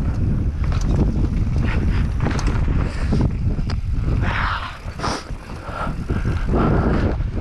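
Mountain bike descending a rough trail: wind rumbling on the microphone, with the tyres and bike rattling and knocking over dirt and rocks. The noise drops for a second or two a little past the middle, then picks up again.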